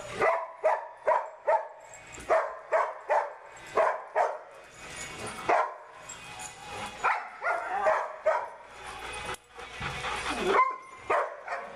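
Dogs barking during rough play, a rapid run of sharp barks about two or three a second in the first half, then fewer, more scattered barks and yips.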